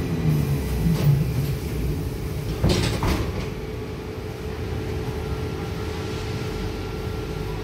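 Cabin of a Trolza-5265.00 Megapolis trolleybus under way: a steady low rumble with a constant electric hum, broken by a sharp knock about a second in and a louder rattling clunk about three seconds in.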